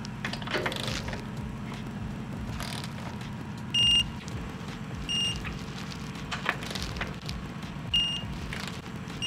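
Digital torque wrench beeping: three short, high electronic beeps, the first longer and louder, as the shock bolts reach the set torque. A few faint clicks of the wrench are heard between them.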